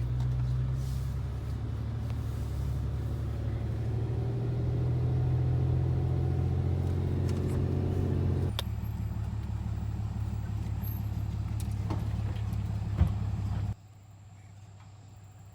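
Car driving along, a steady low engine and road drone. It drops abruptly in level about halfway through and again near the end, with a single sharp knock shortly before the second drop.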